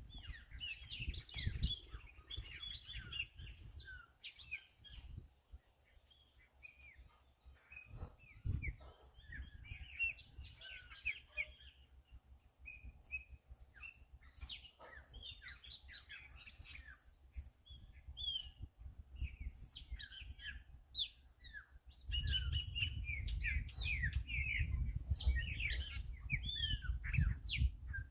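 Several small birds chirping and twittering in a dense, overlapping chorus of short calls. A low rumble runs underneath and grows heavier for the last few seconds.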